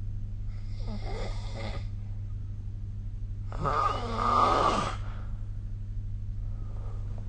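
A sleeping person snoring: a softer snore about half a second in, then a longer, louder snore at about three and a half seconds, over a steady low hum.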